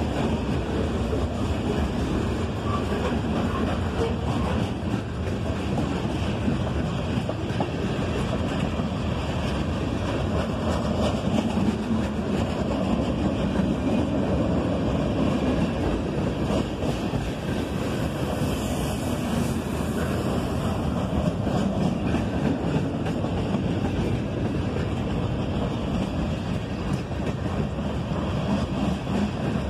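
Norfolk Southern freight train rolling past, a steady rumble of wheels on rail.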